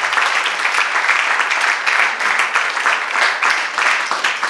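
Audience applauding: dense, steady clapping from a lecture-hall crowd.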